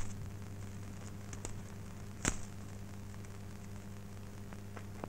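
Steady low electrical hum and hiss of an old film soundtrack, with a few faint clicks and one louder short crackle about two seconds in.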